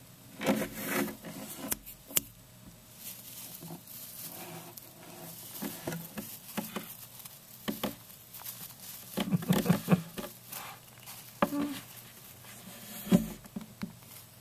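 Russian dwarf hamster scrabbling and rustling about in its cage, irregular scratchy patters and small clicks in the bedding.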